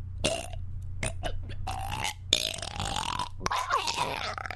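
A person belching: a few short clicks, then a long drawn-out belch starting about a second and a half in, followed by a second, shorter belch with a wavering pitch. A steady low hum runs underneath.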